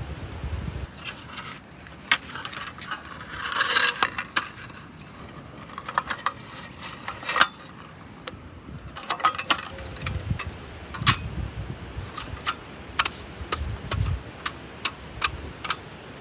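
Handling of small hard objects: a run of sharp clicks and light metallic clinks, with a rustling scrape about four seconds in and a few dull knocks.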